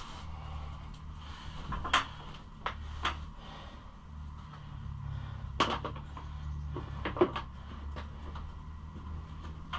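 Rummaging in a toolbox: a handful of sharp clacks and clinks of drawers and metal parts, over a steady low hum.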